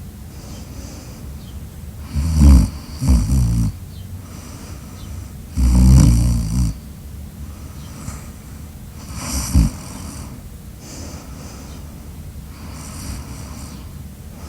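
A sleeping person snoring loudly: two snores close together about two seconds in, a longer, louder snore around six seconds, and a short one near ten seconds, with softer breathing between them.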